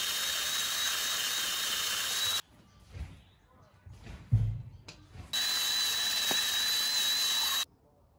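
DeWalt 18V cordless combi drill spinning a steel wire cup brush against the rusty sleeve of a steel EZ curl bar, stripping off rust. It runs steadily with a high whine for about two and a half seconds, stops, and runs again for about two seconds near the end. In the pause between there are a few knocks and one sharp thud.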